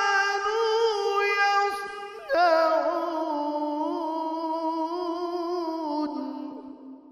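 A male Qur'an reciter chanting in the melodic mujawwad style, holding long ornamented notes with vibrato as he draws out the closing words of the verse. A new high phrase begins about two seconds in, is held for several seconds, and then fades out near the end.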